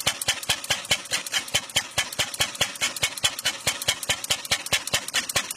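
1886 Benz Patent-Motorwagen single-cylinder engine running on its own at a steady idle, an even fast beat of about six strokes a second. It is firing every cycle, not hit-and-miss.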